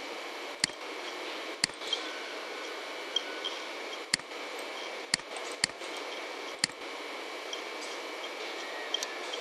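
Six sharp, single computer mouse clicks at irregular intervals over a steady hiss of microphone noise.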